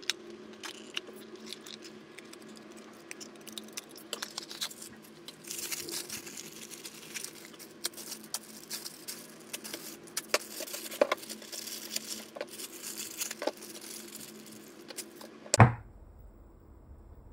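Clear plastic packaging bag crinkling and rustling as it is handled and cut open with a snap-off utility knife, with scattered small clicks. One sharp knock near the end.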